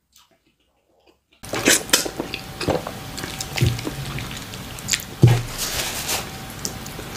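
Near silence, then about a second and a half in, close-miked wet, sticky squishing and clicking as fingers pinch off soft black fufu and work it in okra pepper soup. Two dull low thumps come in the middle.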